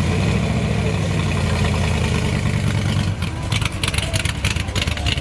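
A car engine running at a low, steady idle with a rumbling exhaust. From about three seconds in, a rapid crackling noise joins it.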